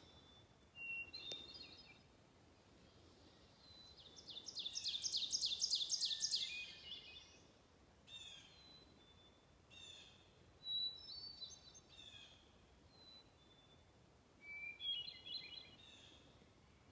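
Songbirds singing in the woods. The loudest song, about four seconds in, is a fast trill of rapidly repeated high notes lasting a couple of seconds. Several shorter, fainter songs from other birds come before and after it.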